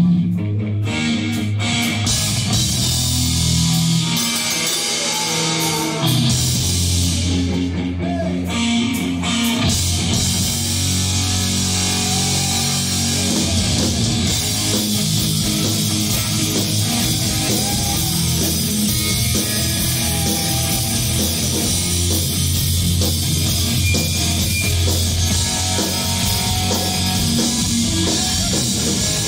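Live heavy metal band playing loud on stage: distorted electric guitars, bass and drums. The riff stops and starts a few times in the first ten seconds, then the full band plays on steadily.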